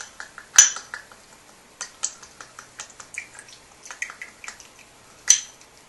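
Tabasco sauce bottle shaken upside down over a small glass: a run of light taps and drips, with two sharper clicks, one about half a second in and one near the end.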